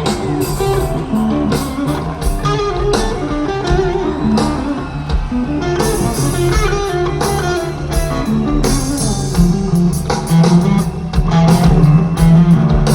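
Live heavy metal band playing an instrumental passage without vocals: electric guitar to the fore over bass guitar and drums.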